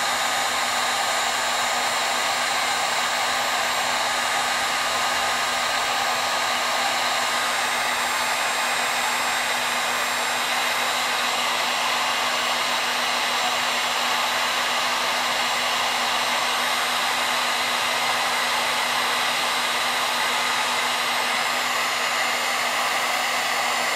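Handheld electric heat gun running steadily, an even rush of hot air with a faint low hum, as it shrinks solder-seal heat-shrink tubing over spliced wires.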